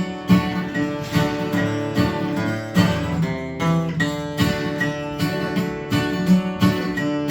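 Acoustic guitar strummed in a steady rhythm: an instrumental break with no singing.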